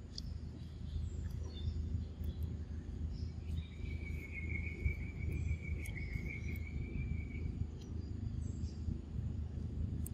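Outdoor ambience with a steady low rumble. In the middle an insect gives one steady high buzz that holds for about four seconds before stopping.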